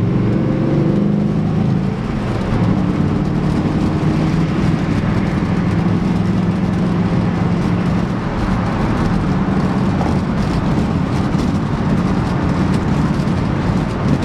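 Cab of a 1994 Ford F150 with its 5.0 V8 cruising at about 65 mph on the freeway: a steady engine drone mixed with road and wind noise through a cracked and taped window.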